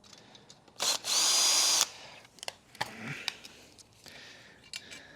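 Power drill-driver spinning in one steady burst of just under a second, its motor whine rising and then holding, as it works on the vacuum's Phillips screws. A few light clicks of parts being handled follow.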